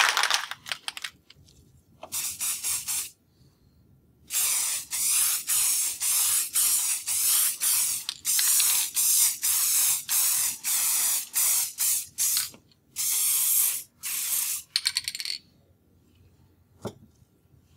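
Aerosol can of clear satin topcoat spraying in short hissing bursts: one brief burst, a pause, then a long run of quick passes that stops about three seconds before the end. A single click near the end.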